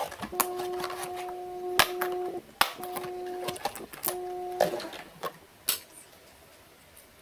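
Camera lens zoom motor whining in three runs: about two seconds, then just under a second, then half a second. Sharp clicks are scattered among them, and it is quieter from about five seconds in.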